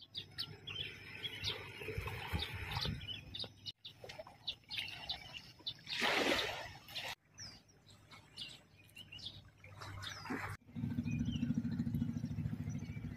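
Birds chirping in short, high calls over outdoor ambience, breaking off abruptly a few times. About six seconds in comes a brief loud rushing noise, and in the last few seconds a steady low hum.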